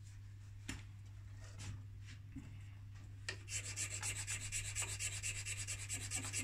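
Hand file rasping back and forth on a stem clamped in a lathe chuck, in quick short strokes, several a second, starting about three and a half seconds in after a few faint clicks. A steady low hum runs underneath.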